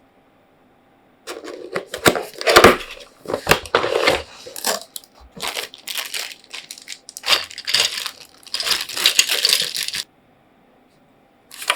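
Packaging being handled and unwrapped: irregular crinkling, rustling and tearing with sharp clicks and knocks, starting about a second in and stopping abruptly near the end.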